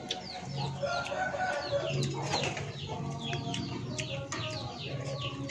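Backyard chickens clucking, with many short, high, falling chirps repeating throughout.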